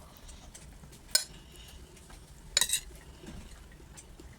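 Cutlery clinking and scraping against a plate while eating: one sharp clink about a second in, then a quick cluster of clinks a little past halfway.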